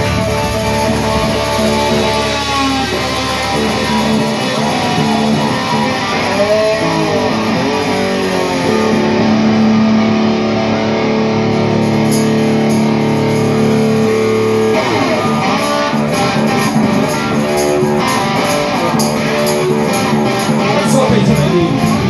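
Live rock band on amplified electric guitars: held notes with pitch bends ring over sustained chords, then drums and cymbals come in about halfway through and settle into a steady beat.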